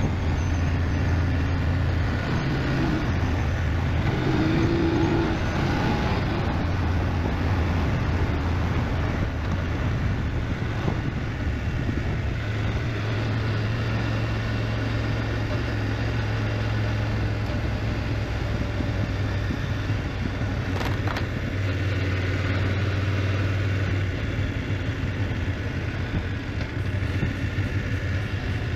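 BMW GS motorcycle engine running steadily while riding, a low drone under constant wind and road noise.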